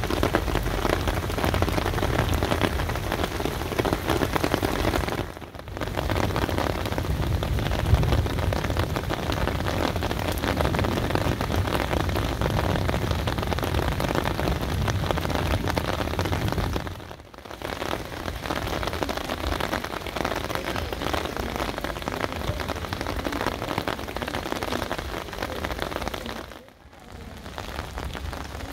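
Steady rain pouring down onto paved streets: a dense, even hiss of falling water, heavier at the low end in the first half. It breaks off briefly three times.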